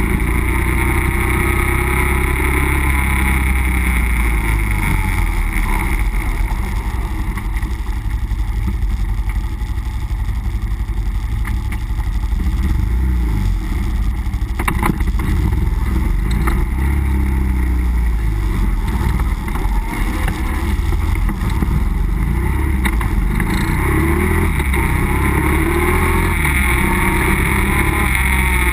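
Nissan Pathfinder driving off-road: the engine runs with a deep rumble, its pitch rising and falling as it revs near the start and again near the end. A couple of sharp knocks come about halfway through.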